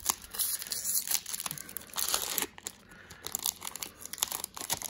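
Foil Pokémon booster pack wrapper crinkling in the hands and being torn open: a run of irregular crackles.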